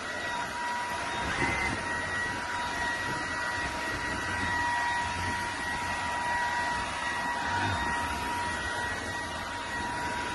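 Bissell PowerClean FurGuard cordless stick vacuum running steadily: a rush of air with a constant high motor whine.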